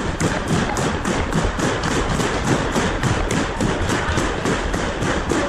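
Footsteps of a walking camera wearer, a quick steady run of thumps and taps picked up through the camera body, over steady outdoor noise.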